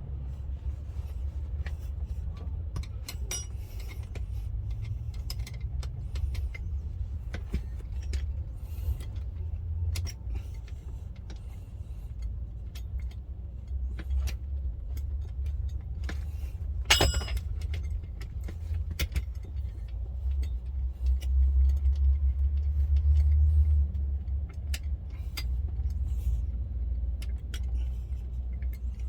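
Scattered small metallic clicks and clinks of bolts and hand tools being handled over a low steady rumble, with one sharper ringing clink about 17 seconds in.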